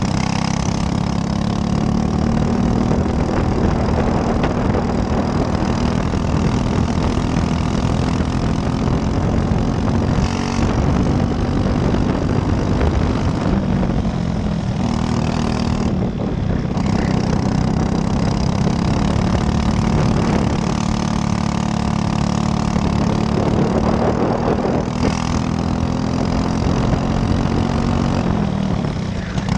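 Briggs & Stratton LO206 four-stroke single-cylinder kart engine at racing speed, heard from on board. Its note climbs gradually, then falls away sharply twice around the middle and once near the end as the kart slows for corners, and climbs again.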